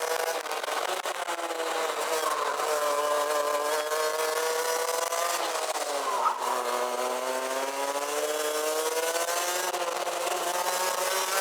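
Rotax Max DD2 kart's 125 cc single-cylinder two-stroke engine, heard onboard. The revs drop sharply about six seconds in as the kart slows for a corner, then climb steadily again as it accelerates away. A steady wind hiss runs over the microphone.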